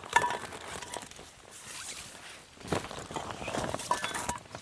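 Rustling, knocking and footsteps as camping gear is handled and set down, with a sharp knock just after the start and a short ringing clink about four seconds in.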